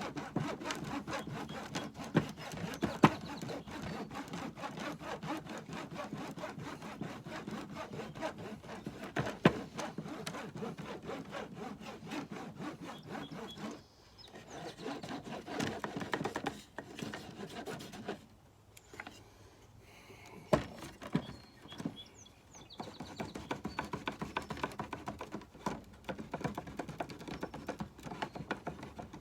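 Block of beeswax rubbed rapidly back and forth over a plastic beehive foundation frame, a steady scraping rub that stops for a few seconds in the middle, with a few sharp knocks.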